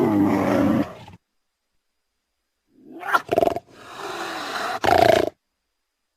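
Cougar calls: one call tails off about a second in, then after a silent gap come two short calls and a longer call lasting about a second and a half.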